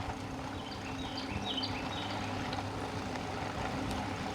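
Eahora Urban e-bike riding along, giving a steady low motor hum and road noise. A bird chirps several short high notes in the first half.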